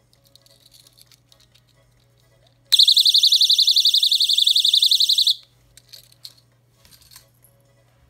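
Personal safety alarm keychain going off: a loud, high-pitched, fast-warbling shriek that starts abruptly about two and a half seconds in, with its pin pulled, and cuts off about two and a half seconds later. Light clicks and rattles of the plastic case and keyring come before and after it.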